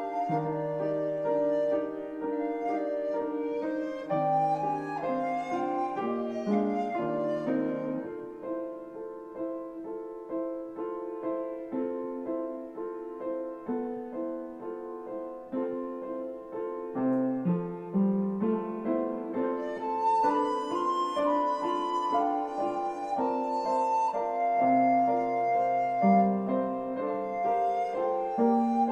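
Recorder and piano playing a classical piece: the recorder holds a melody of sustained notes over piano chords. The music grows softer after about eight seconds and louder again about twenty seconds in.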